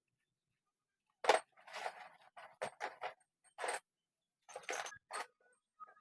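Metal clinking and scraping: a string of sharp clinks and knocks with short scrapes between them, starting about a second in after a moment of silence.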